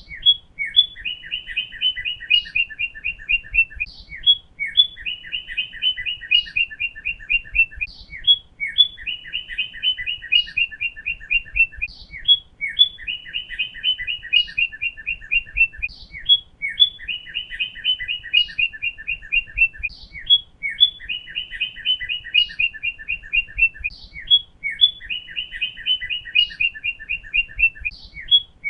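Northern cardinal song, repeated identically about every four seconds as a loop. Each phrase is a few slurred whistled notes followed by a fast run of repeated notes.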